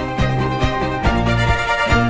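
Instrumental background music with a violin melody over an even rhythm of short low notes.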